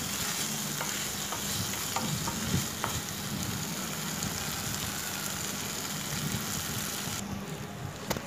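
Prawns in onion-tomato masala sizzling in oil in a nonstick kadai, stirred with a spatula that scrapes and taps the pan. The water the prawns gave off has cooked away, so they are now frying dry. The sizzle drops sharply about seven seconds in.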